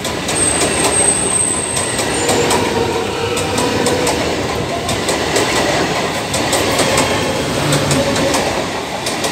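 A Bombardier-built three-phase EMU suburban train rolling past at close range: loud, steady wheel-and-rail noise with the coaches clicking over the rail joints. A thin, high wheel squeal sounds during the first two seconds.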